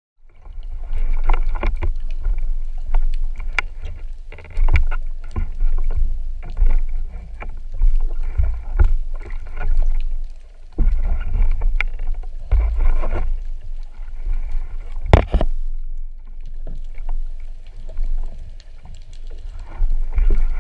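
Water sloshing and splashing around a diver at and just below the sea surface, over a steady low rumble. Louder stretches of a second or two come and go, with scattered clicks and knocks of gear handling and one sharp, loud knock about fifteen seconds in.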